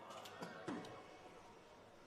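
Quiet hall room tone with a few faint soft clicks in the first second, then near silence.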